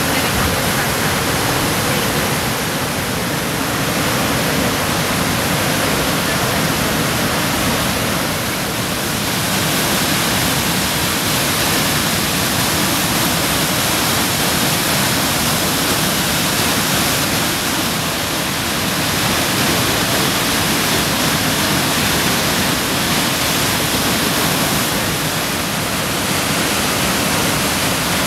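Whitewater of Brooks Falls rushing loudly and steadily as the river pours over the falls and churns below.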